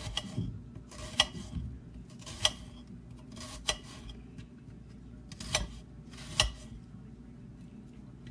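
Kitchen knife striking a glass cutting board while dicing an onion: six sharp clacks, roughly one a second, each with a brief glassy ring. They stop about a second before the end.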